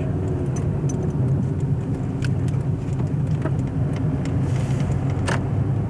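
Car engine and road noise heard from inside the cabin as a steady low drone, with two faint clicks, a little after two seconds in and near the end.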